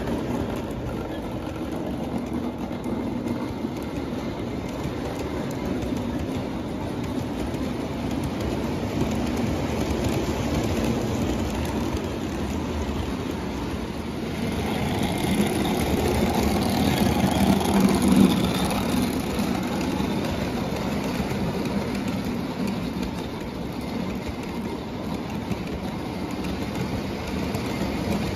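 Lionel O-gauge toy trains running on tinplate track: a steady rumble of metal wheels on the rails with the motor's hum, growing louder for a few seconds about halfway through as the cars pass close.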